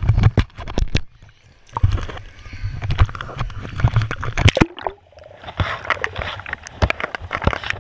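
Swimming-pool water splashing and sloshing against a GoPro camera as it is dipped in and out of the water, with crackling splashes and muffled underwater gurgling.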